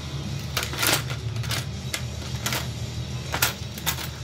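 Hand tools clattering in a plastic tool bin as a hand rummages through it: about half a dozen sharp clicks and rattles, spread unevenly, over a steady low hum.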